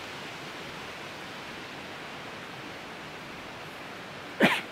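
Steady, even background hiss with no distinct events. Near the end comes a short, louder burst of a man's voice as he starts to speak again.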